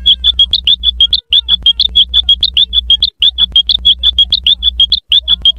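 Cartoon sound effect of rapid high chirps, about ten a second, played very loud over a low hum. The same short stretch repeats, breaking off and starting again about every two seconds.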